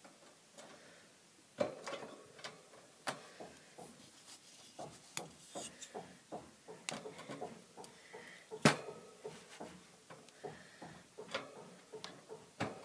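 Hamster toys being handled and set into a plastic hamster cage: a string of light, irregular knocks, clicks and rustles, with one sharper knock a little before the ninth second.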